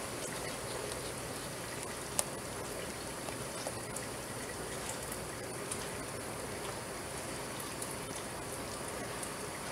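Thick, hot strawberry jam being stirred with a silicone spoon in a stainless steel pot as sugar is worked in: a steady wet churning with a few small clicks, the sharpest about two seconds in.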